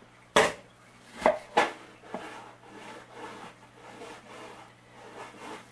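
Kitchen knife chopping an onion finely on a wooden cutting board: three sharp knocks in the first two seconds, then softer, quicker taps.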